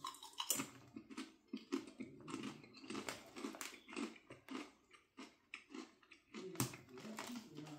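Faint irregular crunching and chewing of Popcorners popped-corn chips, several crunches a second.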